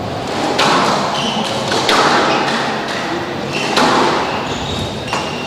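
Squash rally: the rubber ball struck by rackets and smacking off the court walls, about four sharp hits roughly a second or so apart, each with a short ring-out.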